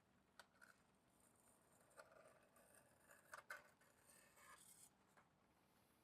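Faint handling of metal flashing: scattered sharp clicks and snaps with scratchy scraping, loudest as a few quick snaps about halfway through.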